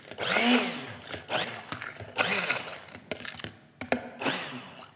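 Hand-held immersion blender running in a stainless steel saucepan, pureeing thick reduced tomato ketchup. It comes in three surges about two seconds apart, each fading away, and its pitch swoops up and down.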